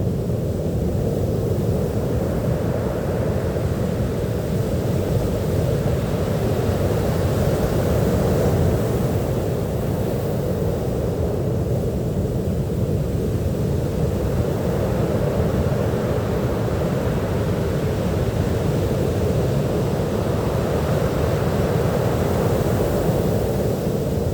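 Ocean surf on a beach: a steady low rumble of waves, with a brighter wash swelling and fading every six or seven seconds as the waves break.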